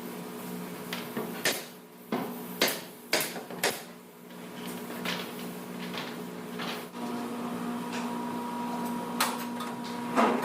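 Irregular sharp knocks from wooden-structure assembly work, about ten over several seconds, each short and sudden. Under them runs a steady machine hum, which gets a little louder about two-thirds of the way through.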